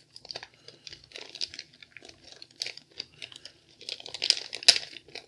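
Crinkly knife packaging being handled and opened: irregular crinkling, rustling and small clicks, busiest and loudest near the end.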